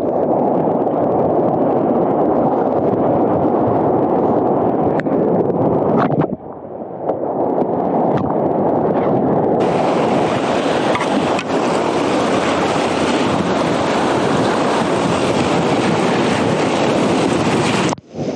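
Whitewater of a Class II–III river rapid rushing steadily around a kayak, with wind and splashing water on the microphone. The rush dips briefly about six seconds in, turns brighter and hissier about ten seconds in, and drops out for a moment just before the end.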